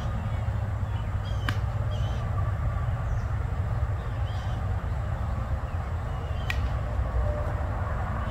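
Two sharp knocks about five seconds apart, over a steady low outdoor rumble with faint bird chirps.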